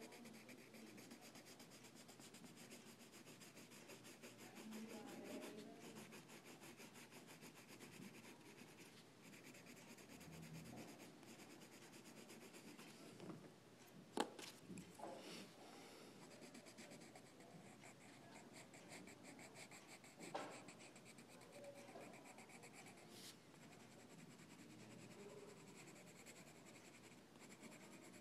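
Faint, irregular rubbing and scratching against a surface, like something being worked by hand, with a sharp click about halfway through and a softer knock a few seconds later.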